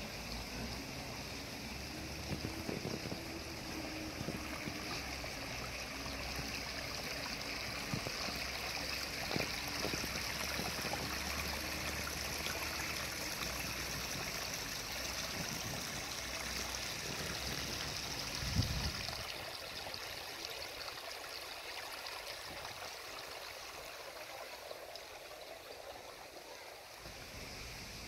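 Shallow stream water trickling over rocks, a steady hiss of running water. A low rumble under it drops away after a single thump about two-thirds of the way in.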